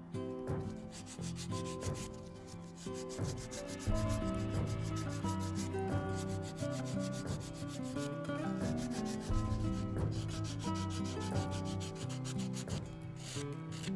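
Sandpaper rubbed by hand in quick back-and-forth strokes over an old wooden moulding.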